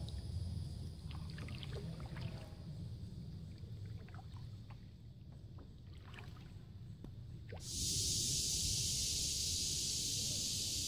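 Small drips, ticks and light splashes of water around a kayak over a low rumble. About two-thirds of the way in, a steady hiss starts suddenly and holds.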